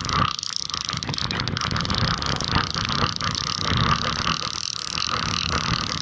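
Fishing reel's line clicker rattling in a rapid, continuous stream of ticks as a hooked catfish is fought on a bent rod. The clicker is stuck on and won't switch off, so it keeps going loudly the whole time.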